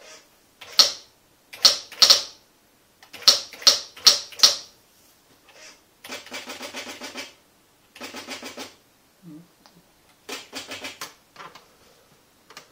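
Commodore SQ-2000 electronic typewriter printing: a string of single sharp character strikes in the first half, then three quick rattling runs of strikes, each lasting about a second, with a faint low motor hum under them.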